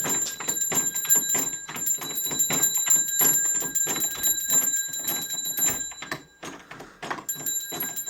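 A dog's doorbell rung over and over by the dog, a ringing kept going by rapid repeated strikes. It stops about six seconds in and starts again about a second later.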